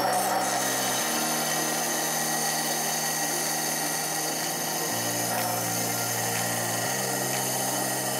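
Proxxon bench disc sander running steadily while the end of a thin wooden strip is held against the spinning abrasive disc, a continuous motor hum with the hiss of wood being sanded.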